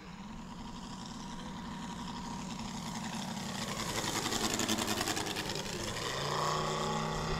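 Engine and propeller of a radio-controlled scale model Let Z-37 Čmelák crop-duster flying past: the sound grows louder, is loudest about five seconds in with a rapid propeller beat, then the engine note drops and holds steady as it moves away.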